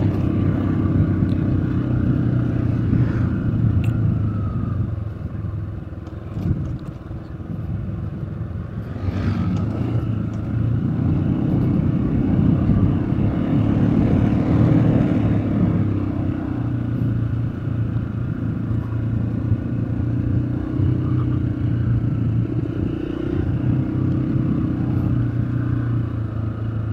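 A road vehicle's engine running steadily on a winding mountain descent, a low hum under continuous wind and road noise that eases briefly about a third of the way in.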